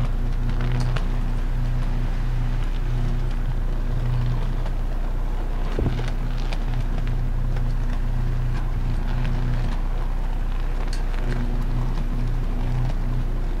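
High-voltage electrical arc burning at a substation insulator bushing: a steady, wavering buzz with scattered crackles and one sharper pop about six seconds in. It is the sound of an arcing fault on high-tension equipment.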